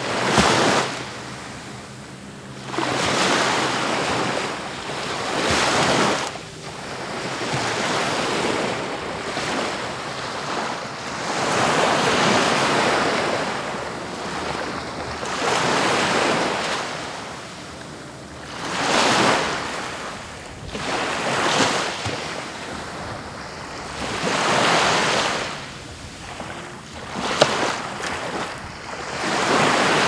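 East Sea waves breaking and washing up on the beach, a surge of surf every two to four seconds, each rising and falling away.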